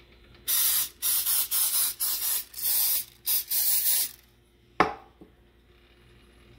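Olive oil sprayer spraying oil into a nonstick frying pan in about seven short hissing bursts over some three and a half seconds. A single sharp knock follows about five seconds in.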